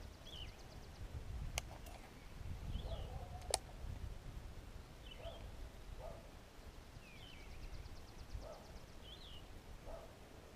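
A bird calling short chirps, one about every two seconds, over a low wind rumble on the microphone. Two sharp clicks come about one and a half and three and a half seconds in, and a faint fast ticking trill sounds at the start and again in the second half.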